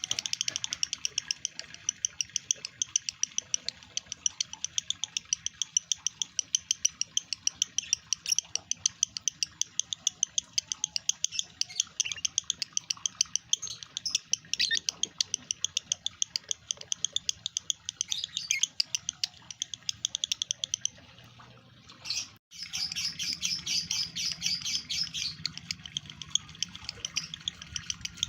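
Lovebird chattering in a long, fast run of sharp, high chirps, several a second. The calling pauses about 21 seconds in, then starts again after an abrupt cut.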